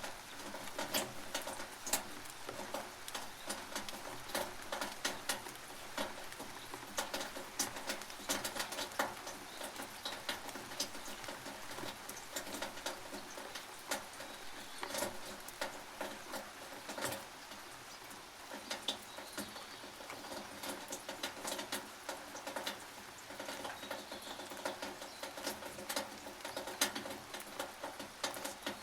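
Rain on a tin roof: a dense, irregular patter of drops and drips over a steady hiss.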